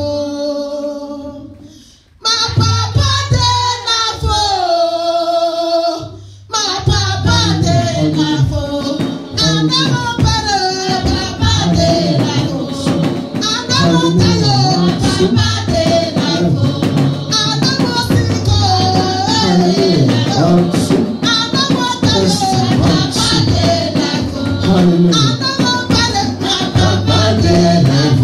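A woman singing a praise song into a microphone over instrumental accompaniment, holding and sliding between notes. There are short breaks about two and six seconds in, after which the accompaniment is fuller.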